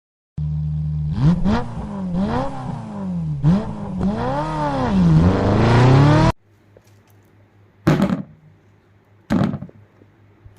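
An engine revved in a series of throttle blips, its pitch rising and falling about five times and growing louder before it cuts off suddenly. A faint low hum follows, broken by three short sharp swishes.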